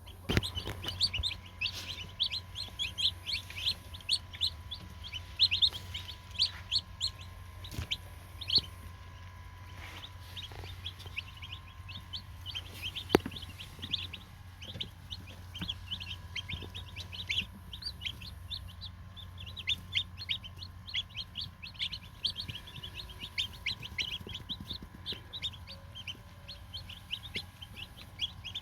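A brooder full of newly arrived meat-bird chicks peeping, many short high peeps overlapping without pause, over a low steady hum.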